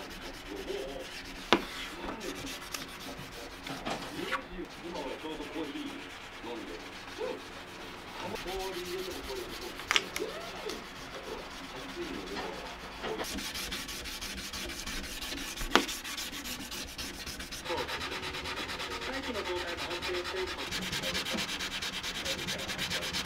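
Wood being sanded by hand: a steady scratchy rubbing of rapid strokes that turns brighter and busier about halfway through. A few sharp knocks stand out along the way.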